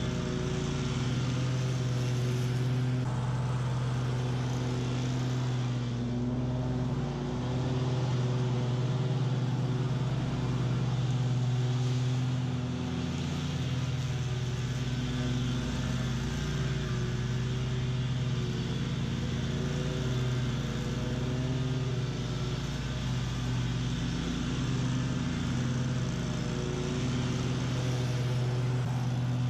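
BOB-CAT QuickCat 36-inch stand-on mower running at a steady pitch while mowing tall, thick weeds, its engine and spinning blades giving a continuous drone.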